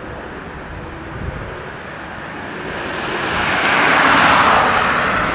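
Jet airliner passing close by: a broad rushing engine noise that swells to its loudest about four seconds in, then starts to fade.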